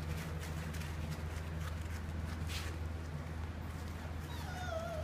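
Bernese mountain dog puppies padding and scrabbling on a plastic tarp, with scattered claw clicks and scuffs over a steady low hum. Near the end a puppy starts a thin whine that falls slightly in pitch.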